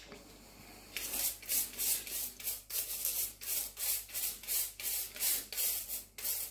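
Stiff-bristled scrubbing brush scrubbing a wet chainsaw chain soaked in soda crystal solution, in quick back-and-forth strokes about three a second, starting about a second in.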